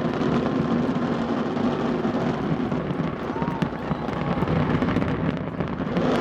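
Fireworks crackling and bursting in a dense, continuous stream, with crowd voices underneath.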